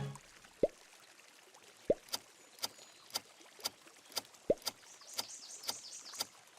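Faint, regular ticking, about two ticks a second, with four drip-like plops that rise in pitch scattered among the ticks: a quiet ticking-and-dripping sound effect.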